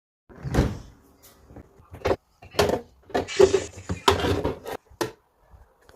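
Refrigerator doors, drawers and containers being handled: a series of separate knocks and clunks, about six in all, with a short rustle in the middle.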